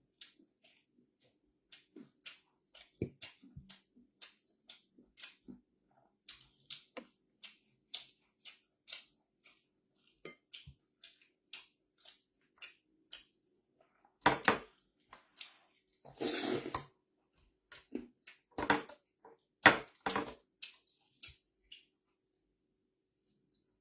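Close-miked eating: a string of short, irregular mouth clicks and chewing sounds, with louder clatters and a brief scraping rustle in the second half.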